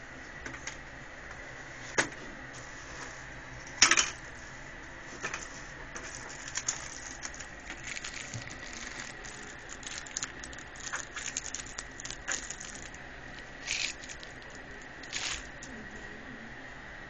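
Irregular clicks and knocks, like things being handled close to the microphone. There is a sharp knock about two seconds in and a louder one about four seconds in, then a run of small irregular clicks, and two short rustles near the end.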